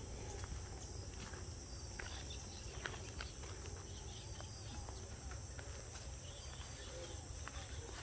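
Steady high-pitched insect drone, with a low rumble underneath and scattered faint clicks.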